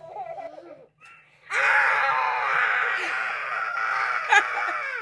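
Talking Dash and Jack-Jack action figures playing their recorded voices and baby sounds through their small speakers. The sound gets loud and busy about a second and a half in, with a child laughing along.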